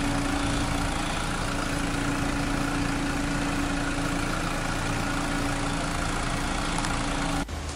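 2016 Honda Civic EX's four-cylinder engine idling steadily, a constant hum with one clear steady tone. The sound cuts off abruptly near the end.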